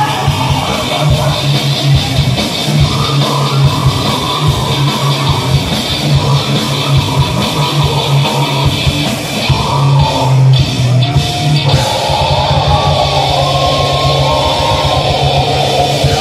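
Live gore-grind band playing loud: distorted electric guitar and bass over rapid, dense drumming.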